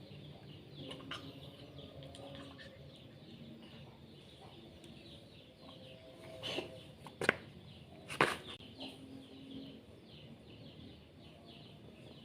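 Domestic cat coughing: three short, loud hacking coughs in quick succession a little past the middle. The owner thinks the cold, rainy weather may have made the cat ill.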